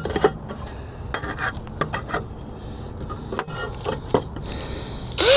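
Irregular metallic clicks and scrapes as a Phillips bit works screws into a metal wall mount, the bit slipping in the screw heads. A louder scrape comes right at the end.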